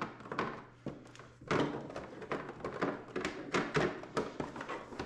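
A power supply brick and its plastic wall-mount holder being handled and pulled out of a moulded packaging insert: a run of irregular knocks, clicks and scraping rustles.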